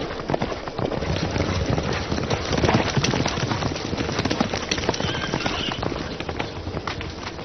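Clattering hoofbeats: many quick hard knocks at once, growing louder to a peak about two and a half seconds in, then slowly easing off.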